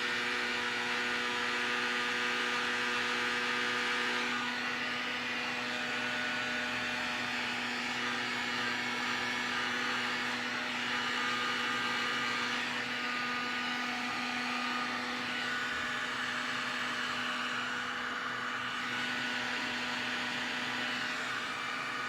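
Electric heat gun blowing steadily with a constant whir and hum, as used to shrink tubing over new wire connectors.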